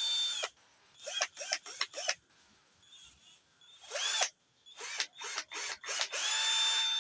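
Total 12 V cordless mini drill's motor run in quick trigger blips, each whining up in pitch as it spins up, in two clusters of several blips, then held running steadily near the end.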